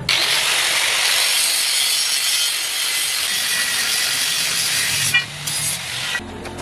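Angle grinder with a thin cut-off disc cutting through steel angle iron: a steady, loud, high grinding hiss that ends about five seconds in as the disc cuts through the bar.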